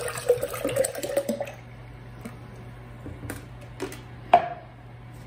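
Thin vinegar-based barbecue sauce pouring from a plastic gallon jug into a glass mason jar, the tone rising slightly as the jar fills; the pour stops about a second and a half in. A few light clicks follow, then a sharp knock with a brief ring about four seconds in.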